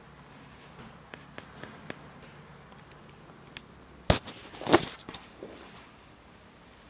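A few faint clicks, then two sharp knocks close together about four seconds in, the second the louder.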